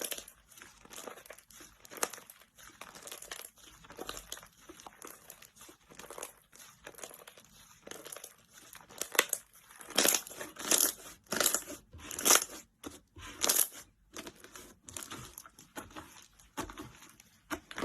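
Slime being squeezed and pressed by hand, giving crackling, crinkling noises. Quiet and scattered at first, then louder bursts of crackling, a few a second, from about ten seconds in.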